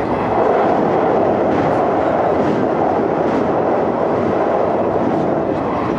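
Steady rumble of a moving electric commuter train heard from inside the carriage, wheels running on the rails with faint regular clicks about once a second, as the train runs onto a steel truss bridge.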